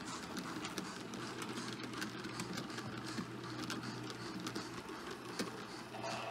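Model freight train rolling past on the layout track: a steady hum and rumble of the wagons' wheels running on the rails, with frequent light clicks.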